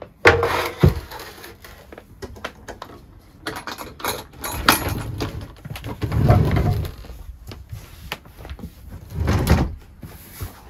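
A sofa bed's pull-out base rolling out on its casters over a wooden floor, with sharp knocks at the start as a plinth board is lifted off and low rumbling scrapes as the frame slides, loudest about six seconds in.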